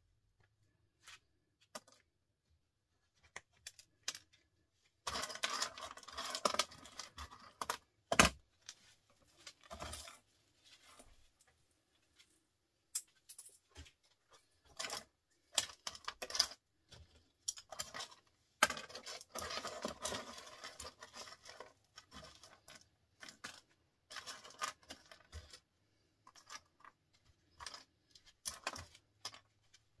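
Small microwave microswitches and scrap parts being handled: scattered sharp clicks and clinks, with two longer spells of rattling clatter about five and nineteen seconds in.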